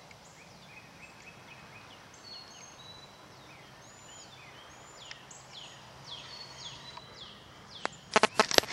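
Small wild birds chirping and whistling, many short calls overlapping, some falling in pitch and some held level. A quick burst of loud knocks near the end, the camera being handled.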